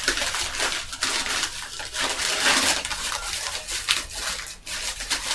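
Irregular rustling and crinkling of paper packing and cardboard as game parts are handled and lifted out of the box.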